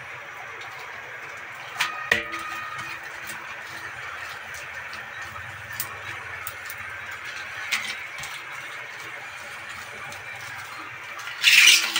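Clear plastic wrapping and backing film of a tyre repair patch crinkling and rustling as it is handled and peeled, with a few sharp clicks and one louder rustle near the end, over a steady background hiss.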